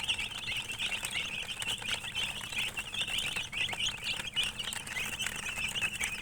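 Many chicks peeping at once: a dense, continuous chorus of short high chirps overlapping without a break.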